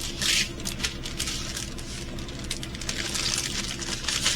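Small plastic bags of resin diamond-painting drills being handled: crinkling with light clicks and rattles, over a steady low hum.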